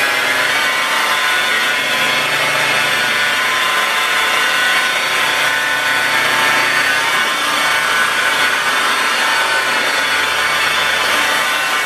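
Electric rotary polisher running steadily, its pad buffing the paint of a car body panel, with a steady motor whine under the rubbing.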